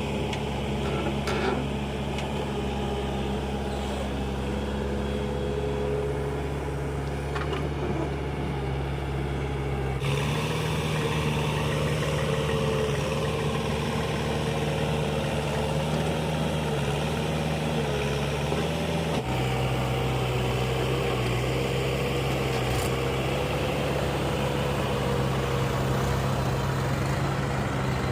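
Heavy diesel machinery, a backhoe loader and tractors, running steadily at work. The engine note changes abruptly about ten seconds in and again a little before twenty seconds.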